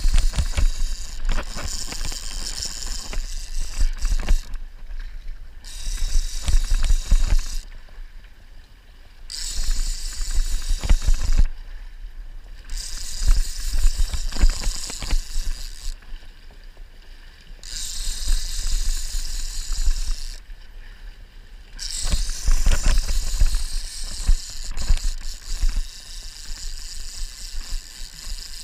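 Rowboat being rowed: water rushing along the hull in regular surges about every four seconds, one per oar stroke, with scattered knocks.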